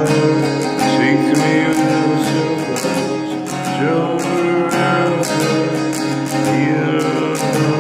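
Acoustic guitar with a capo strummed in a steady chord rhythm, with a man's voice singing along.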